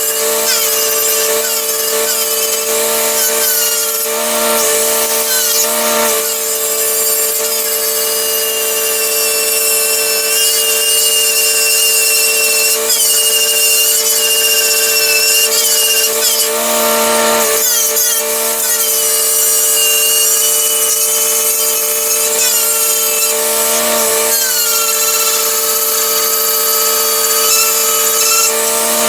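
Lincoln SA-200 engine-driven welder running steadily after a cold start, with a constant whine and higher squealing tones that slide up and down.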